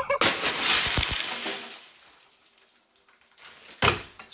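A sudden crash with a noisy, clattering tail that fades away over about two seconds, then a second short noisy burst near the end.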